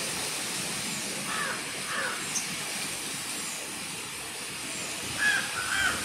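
Wind through tree foliage, a steady rustling hiss of leaves. A bird calls twice with short calls between about one and two seconds in, and a few more times near the end.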